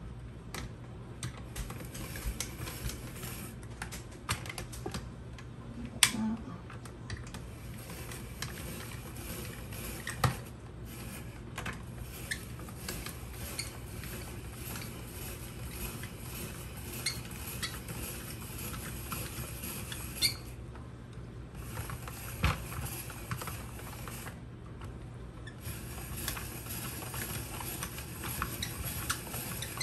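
Hand-cranked plastic spiralizer cutting a yellow squash into thick spirals: an uneven run of small clicks and rattles from the crank and blade, with a few louder knocks.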